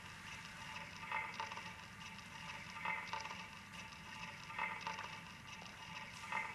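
A looped stage sound cue: a thin, tinny pattern that swells in a short pulse about every second and three quarters, over a low steady hiss.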